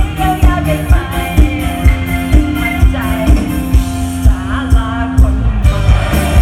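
Live luk thung band music played loud through a concert sound system, with a steady drum beat about twice a second under bass and melody lines.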